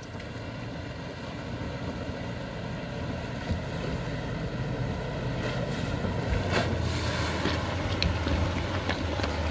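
Range Rover Sport's engine running as the SUV wades through a muddy flooded trail, growing steadily louder as it approaches, with water sloshing and washing around its wheels.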